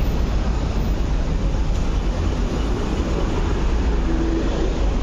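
Toyota public light bus (minibus) engine running as it moves past close by, over a steady low rumble.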